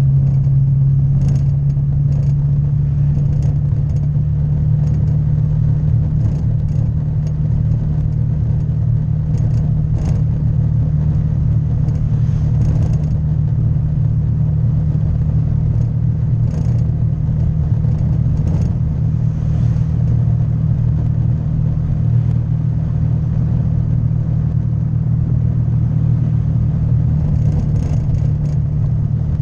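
Honda Vario 150 scooter's single-cylinder engine running at a steady speed while riding, a constant low drone, with scattered light clicks and rattles.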